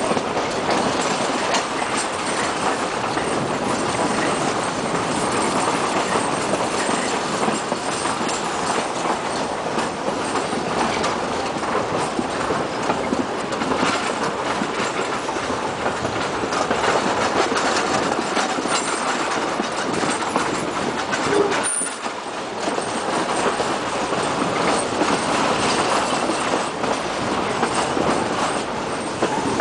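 Heritage train carriages running along the line, heard from a carriage window: a steady rush of wheels on rail with clickety-clack over the rail joints, easing briefly about two-thirds of the way through.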